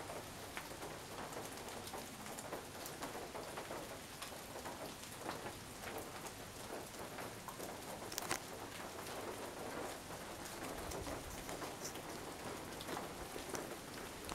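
Steady rain falling on the surrounding trees and leaves, with many scattered individual drops ticking and one sharper tick about eight seconds in.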